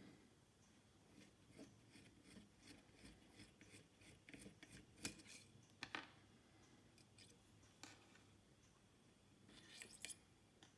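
Faint, irregular small clicks and brief scraping or rustling strokes of hands working with a small tool or material.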